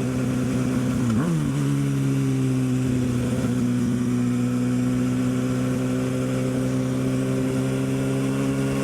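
Kawasaki ZX-6R's inline-four engine running at steady moderate revs, its pitch dipping briefly about a second in and then holding level.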